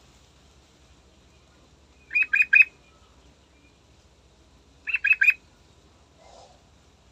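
Yellow-vented bulbul (trucukan) singing two short phrases, each of three quick, bright notes, about two and five seconds in.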